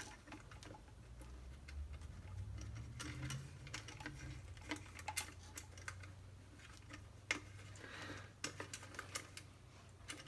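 Scattered light clicks and taps of small parts being handled as the power cord and its grommet clamp are fitted into the garbage disposal's wiring opening.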